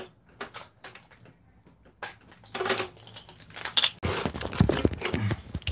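Small plastic and metal items being handled: light clicks and rattles, with a louder rustling, knocking stretch about four seconds in.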